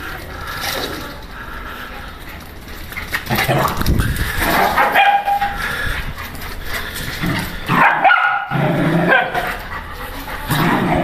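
Dogs barking and yipping in play, in several short bursts a few seconds apart.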